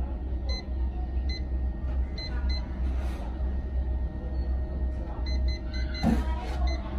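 Construction-site background noise: a steady low rumble with short high beeps now and then, singly and in quick runs, and a brief noisy burst about six seconds in.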